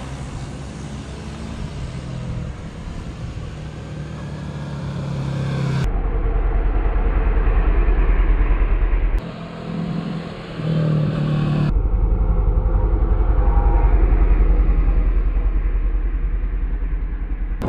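Sport motorcycle engine running as the bike rides through a curve past the microphone, swelling in loudness as it comes near. The sound changes abruptly about 6, 9 and 12 seconds in, where short clips are cut together.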